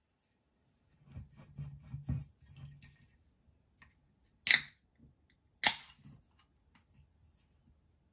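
A run of light clicks and knocks, then two sharp, loud clicks about a second apart, followed by a few faint ticks.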